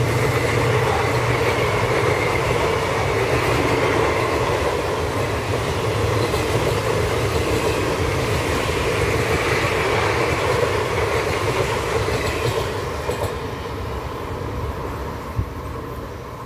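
Passenger coaches of an Indian Railways express running past at speed, a steady noise of wheels on the rails that fades over the last few seconds as the end of the train draws away. A single sharp click sounds near the end.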